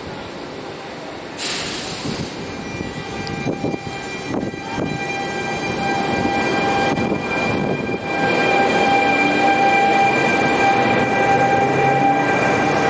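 A train moving through the station, growing louder toward the end, with a steady high whine and a short sharp hiss about a second and a half in.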